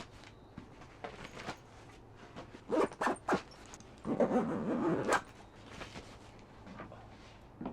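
Camping gear being handled and packed: scattered clicks and knocks, three short zipper-like rasps about three seconds in, then one longer rasp lasting about a second.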